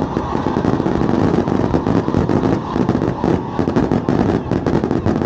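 Fireworks going off in a dense barrage: rapid, irregular pops and crackles with no break.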